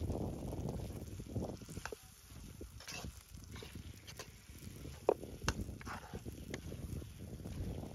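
Steel spoon stirring raw goat meat and masala in a steel kadhai: wet squelching of the meat with scattered clicks and scrapes of the spoon against the pan, the loudest click about five seconds in.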